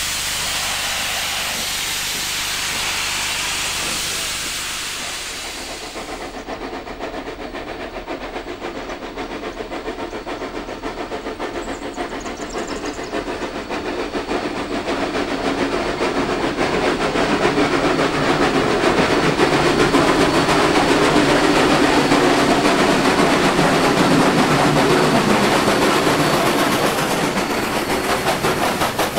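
Steam hissing from a standing C36-class 4-6-0 steam locomotive, from steam escaping low at the cylinders. About six seconds in it gives way to two steam locomotives double-heading a passenger train under load, their fast exhaust beats growing steadily louder as they come up and pass close by.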